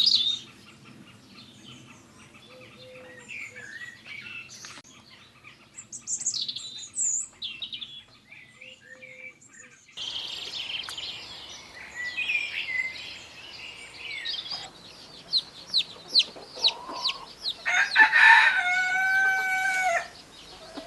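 Chickens clucking and small birds chirping, with a rooster crowing once, for about two seconds, near the end.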